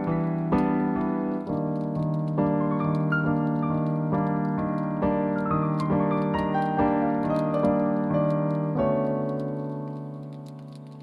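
Background piano music: a slow run of struck notes and chords, ending on a held chord that fades away over the last two seconds.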